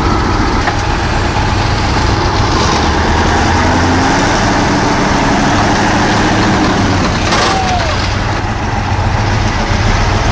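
Heavy truck engine running steadily under load while driving through deep mud, with a short sharp clatter about seven seconds in.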